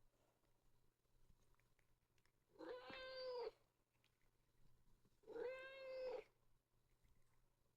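Domestic cat meowing twice, two drawn-out meows of about a second each, a couple of seconds apart.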